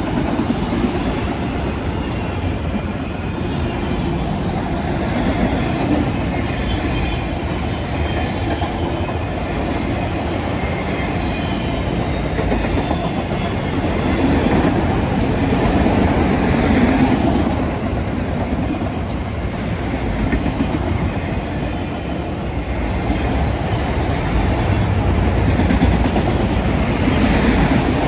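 A long freight train's cars rolling steadily past on steel wheels, a continuous rumble and rattle that swells a little twice.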